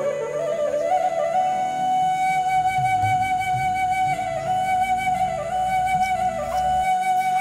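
Background music led by a flute, holding one long steady note with a few short turns in the melody.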